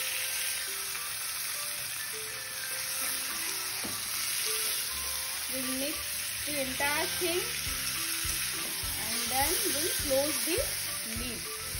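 Marinated chicken pieces and potatoes sizzling as they fry in mustard oil in a steel kadai, stirred with a spatula. A few low knocks come near the end as the spatula turns them.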